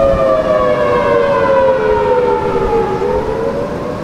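A 1980 Federal Signal Thunderbolt 1003A civil defense siren sounding its wavering attack signal from about 1200 feet away. Its pitch glides down for nearly three seconds, then starts to rise again. Strong wind rushes across the microphone underneath.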